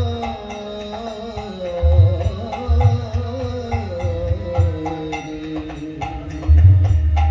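Bengali devotional kirtan: a khol barrel drum beating in a rhythmic pattern under a held, slowly gliding melody from a man's singing voice and harmonium. The drum strokes grow heavier about two seconds in and again near the end.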